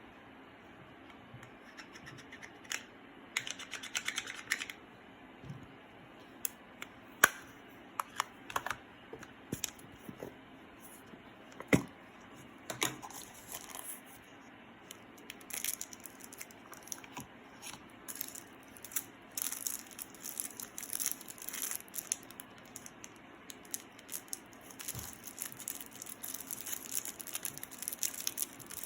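Close handling noises from making slime: scattered sharp clicks and taps, then from about halfway through a denser run of crackling and rustling.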